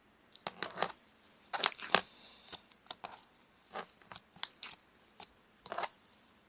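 Slime being pressed, giving irregular clusters of sticky crackles and popping clicks, the loudest about two seconds in and the last near the end.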